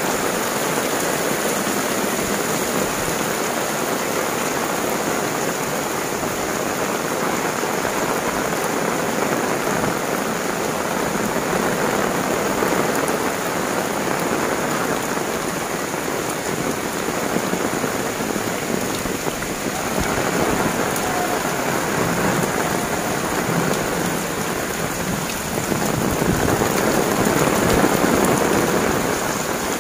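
Heavy tropical rain pouring down in a steady dense hiss, growing somewhat louder near the end.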